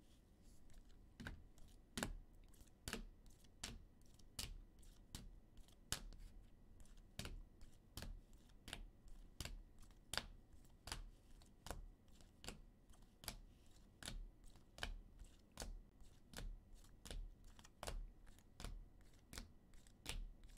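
Rigid plastic toploader card holders clicking against one another as they are flipped one by one through a stack, about two light clicks a second.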